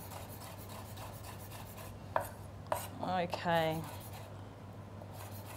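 A chef's knife dicing tomato on a wooden chopping board: a quick, even run of light knife taps on the board, with two sharper knocks a little past two seconds in.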